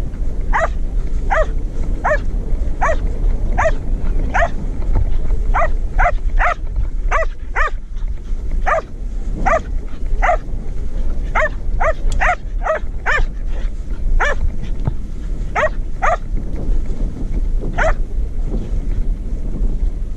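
Border collie barking over and over as it runs, about one to two barks a second, with the barking stopping a couple of seconds before the end. A steady low rumble lies underneath.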